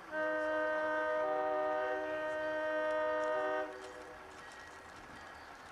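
Diesel locomotive's air horn sounding one long blast of several notes at once, lasting about three and a half seconds and cutting off sharply.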